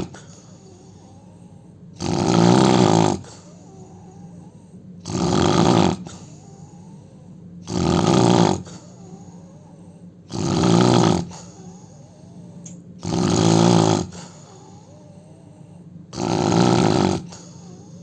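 A man snoring in a steady rhythm: six snores, one about every two and a half to three seconds, each lasting about a second.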